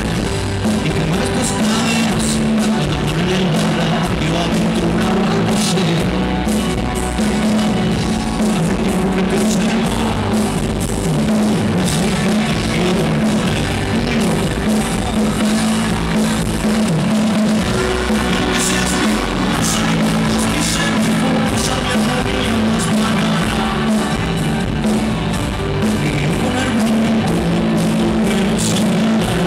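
Live rock band playing loud and without a break: electric guitars, bass and drum kit, with a male singer, heard from the audience.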